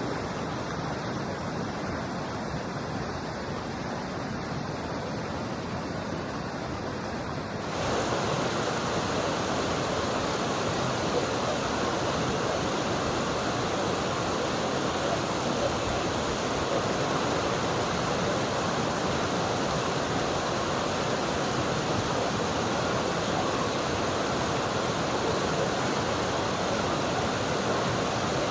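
River water flowing, a steady rushing noise. About eight seconds in it turns louder and brighter, with more hiss, and stays so.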